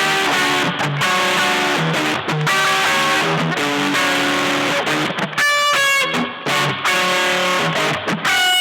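Electric guitar played through an EarthQuaker Devices Zoar distortion pedal, a distorted tone. It runs quick changing notes and chords, with a few longer held chords about five and a half seconds in.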